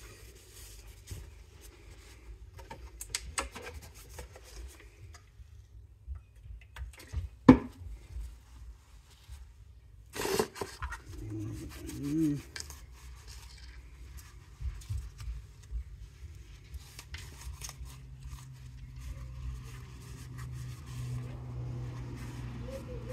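Handling sounds of a tape-masked headlight housing being wiped down with a cloth: rubbing and rustling of cloth and masking tape, with scattered clicks and one sharp knock about seven seconds in.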